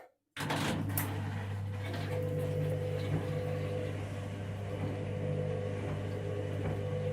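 Washing machine drain pump running with a steady hum, cutting in abruptly just after the start.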